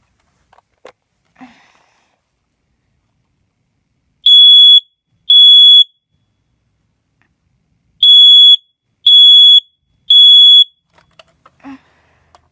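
Smoke alarm sounding: loud, piercing, high-pitched beeps of about half a second each, two, then a pause of about two seconds, then three more in a row.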